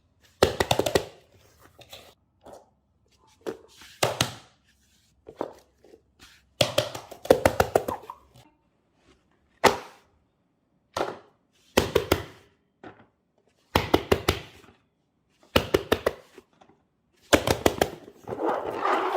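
Short runs of quick taps and clicks on a hard surface, a cluster every second or two, ending in a longer rustling scrape.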